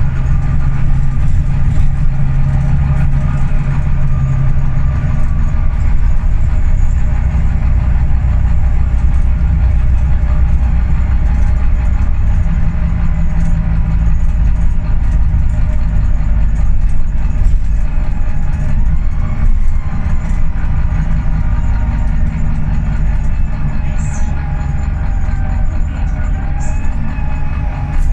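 Volvo B9TL double-decker bus in motion, heard from the upper deck: its diesel engine and drivetrain give a loud, steady low drone. The engine note shifts about five seconds in, and a faint whine slides in pitch near the end.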